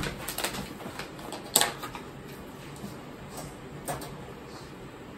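A few light clicks and knocks of kitchen utensils being handled, the loudest about one and a half seconds in and another near four seconds.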